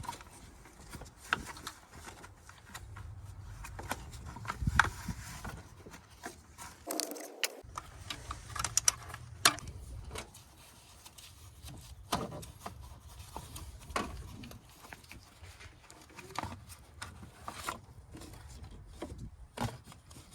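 Scattered clinks, clicks and knocks of hand tools and metal and plastic parts being handled during work on a car battery, over a faint low rumble.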